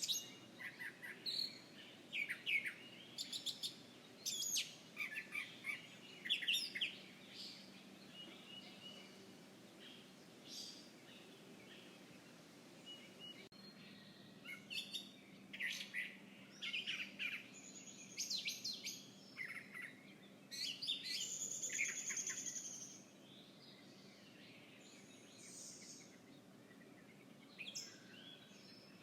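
Wild birds chirping, a quick run of short high chirps and calls, with a busier stretch of song about twenty seconds in; after that only a few scattered calls over a faint steady background hum.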